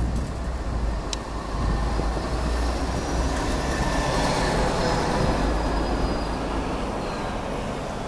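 Outdoor traffic noise with a steady low rumble, swelling and easing off around the middle as a vehicle passes.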